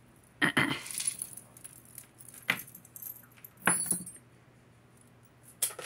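Metal costume-jewelry chains and beads clinking and jangling as they are picked out of a pile, in short bursts a second or two apart.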